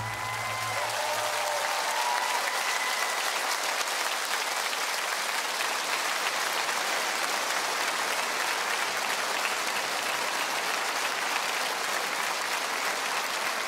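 Large concert audience applauding steadily at the end of a song.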